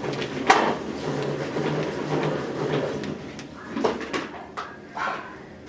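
Household handling sounds: several sharp knocks and clatters of objects being set down or doors and drawers moved, with a steadier rustling stretch in between.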